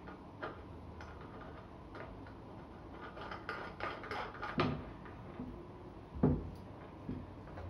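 Light clicks and taps as a pleated fabric lampshade is handled and fitted onto the metal tip of an Ikea Årstid table lamp. There is a quick run of small clicks in the middle and a single louder knock about six seconds in.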